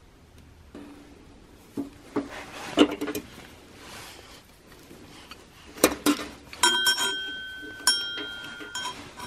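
Hard metal objects, such as tools and small parts, clinking and knocking against each other in a scatter of separate strikes. Several strikes in the second half leave a short metallic ring.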